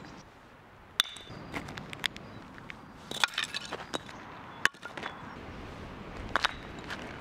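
Footsteps crunching on gravel with a handful of sharp wooden knocks as the Mölkky throwing frame (mölkkaari) is stepped on and knocked out of place; about four clear knocks, spread apart.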